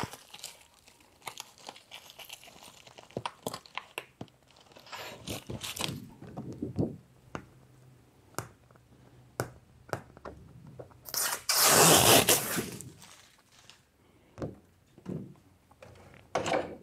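A thin clear PETG plastic sheet being handled and fitted into a vacuum former's frame: crinkling and scraping plastic with scattered clicks and knocks, and one longer, louder burst of crinkling and scraping about eleven seconds in that lasts a couple of seconds.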